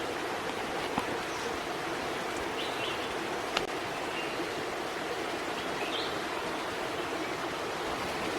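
Steady rushing noise like running water. There are two sharp clicks, about a second in and again at around three and a half seconds, and a few faint short chirps.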